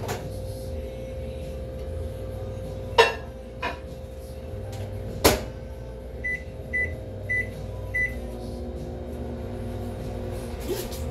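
Microwave oven in use: two sharp knocks as its door is shut, then four short keypad beeps about half a second apart as the cooking time is entered, over a steady low hum.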